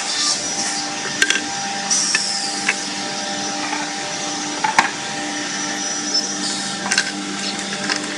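CNC side-drilling machine running with a steady hum, while a board panel is slid and set on its grid table: a few sharp knocks and a short scrape.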